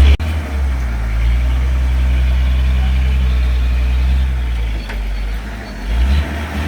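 Lorry engine idling with a steady low rumble that eases off a little past four seconds in and then turns uneven.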